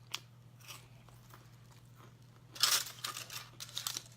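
Close-up eating sounds: a short, loud crackling noise about two and a half seconds in, followed by a few small sharp mouth clicks, over a steady low hum.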